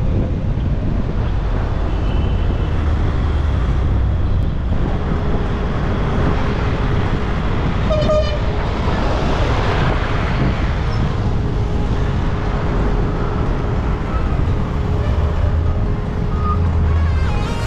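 Skoda Rapid driving through city traffic: a steady low rumble of road and engine noise, with a vehicle horn giving a short toot about eight seconds in.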